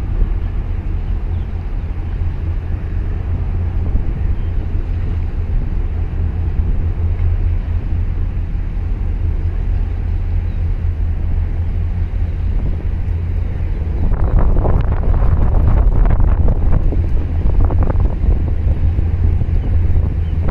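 Wind buffeting the microphone over choppy harbour water, a steady low rumble with an engine-like drone under it. For a few seconds near the end the gusts and water splashing grow louder and rougher.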